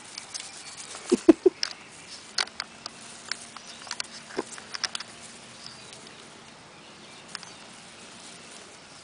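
Smooth fox terrier puppy pattering and rustling about in the grass, with scattered light clicks and a short cluster of dull thumps about a second in.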